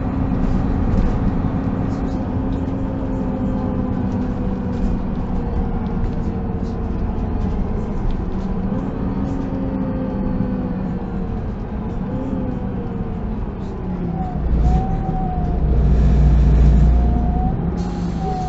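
Solaris Urbino 12 city bus heard from inside the passenger cabin while driving: engine running with a drivetrain whine that slowly falls in pitch. About fourteen seconds in, the sound changes to a louder, deeper rumble with a new, higher steady whine.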